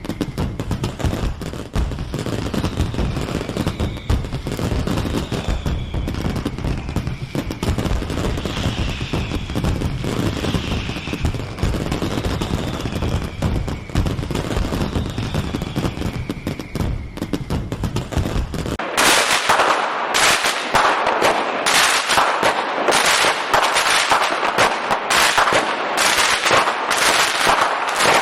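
Fireworks display: dense crackling and bangs over a low rumble, with faint falling whistles recurring. About two-thirds of the way in it changes abruptly to a run of sharp cracks, about two a second.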